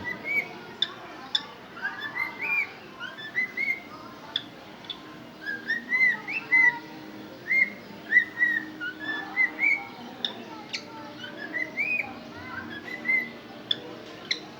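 Cockatiel whistling: runs of short clear notes that each swoop up and drop back, mixed with brief sharp chirps.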